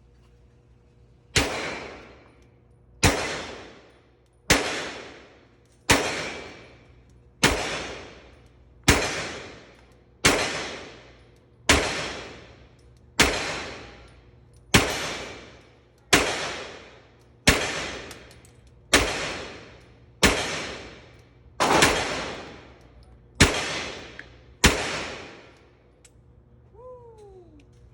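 A P80-framed Glock 34 9mm pistol with a ported barrel being fired in slow, steady single shots, about one every second and a half, seventeen in all, each shot trailing off in a long echo. Near the end a short falling squeak is heard.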